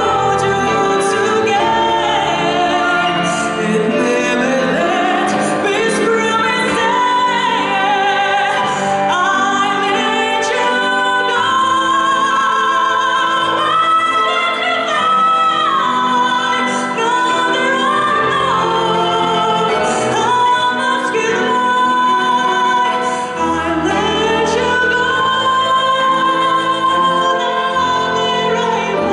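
A woman singing in a trained, operatic-leaning voice, holding long notes with vibrato, accompanied by a Grotrian-Steinweg grand piano.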